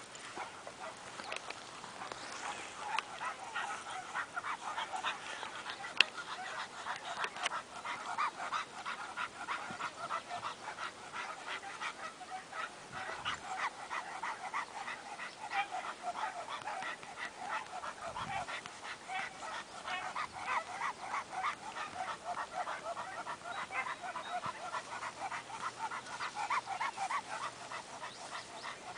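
Terrier barking in a rapid, unbroken run of several barks a second.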